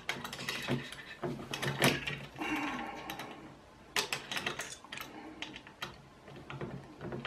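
Hex (Allen) key working bolts on a Creality CR-10S 3D printer's heated-bed carriage: irregular small metallic clicks and scrapes as the key is seated and turned.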